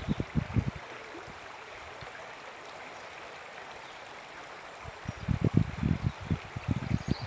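River water rushing steadily, an even hiss. Low rumbling buffets on the microphone come in during the first second and again from about five seconds in, louder than the water.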